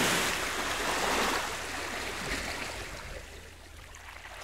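Sea water washing and rushing, swelling briefly then fading away gradually.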